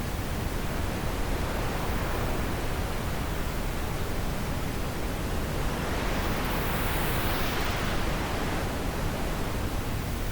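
Wind blowing in a steady, even rush, swelling into a brighter gust about six to eight seconds in.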